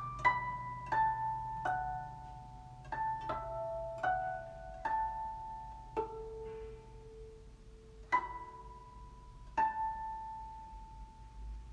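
Guzheng plucked solo, playing a slow closing passage: single notes that ring and fade. They come in quick succession at first, then further apart, with a lower note held about halfway through.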